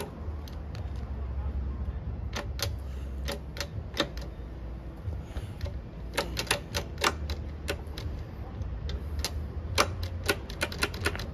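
A run of sharp, irregular clicks and taps, sparse at first and coming thick and fast in the second half, from small plastic and metal parts being handled while working on a motorcycle's wiring. A steady low hum runs under them.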